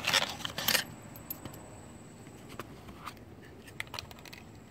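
Rustling and small clicks of a new spark plug being handled out of its cardboard box. The rustle is loudest in the first second, and scattered light clicks follow.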